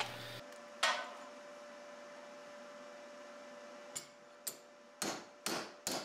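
Hammer striking a small curved metal latch strip held over a bench vise, a run of sharp metallic blows about two a second starting around four seconds in. A single knock comes about a second in, over a faint steady hum.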